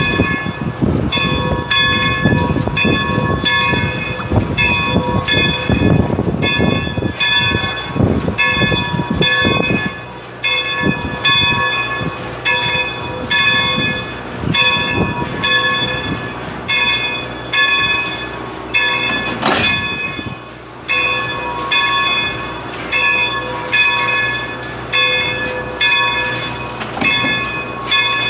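Steam locomotive's bell ringing steadily as the 1925 Baldwin 2-8-0 backs down onto its train to couple up, about one and a half strokes a second. A low rumble of the moving engine sits under the bell for the first third.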